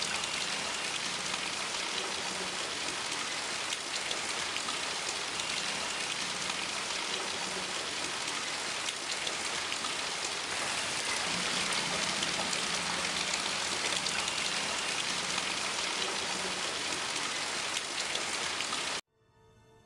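Steady rain falling on broad leaves, cutting off suddenly near the end.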